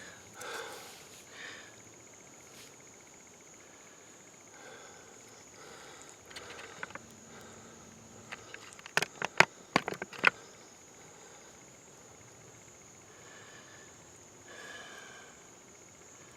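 Steady high-pitched trilling of insects, with a quick cluster of sharp clicks about nine to ten seconds in.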